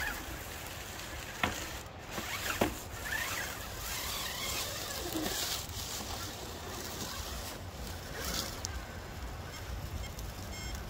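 Electric RC rock crawler driving over boulders: the motor and gears whirring as the tyres scrabble and scrape on rock, with a couple of sharp knocks about a second and a half and two and a half seconds in as the chassis bumps the stone.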